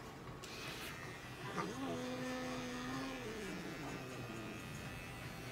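Small battery-powered pet clipper buzzing steadily as it trims the fur between a cat's paw pads.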